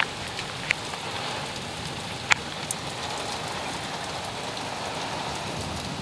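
Heavy storm rain beating steadily on a closed window, with a few sharp taps of drops striking the glass, the loudest about two seconds in.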